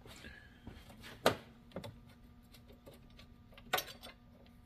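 Scattered light clicks and taps of hands handling small parts and hoses in a car's engine bay. The sharpest comes about a second in and another near the end, over a faint steady hum.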